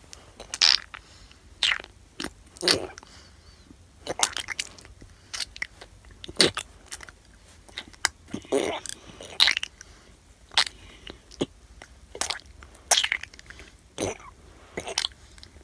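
A person chewing and biting close to the microphone: short, irregular munching sounds, roughly one a second.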